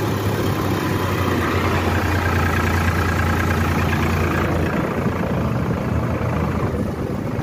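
Powertrac Euro 50 tractor's diesel engine running steadily as the tractor drives along the road. Its low drone eases a little about four and a half seconds in.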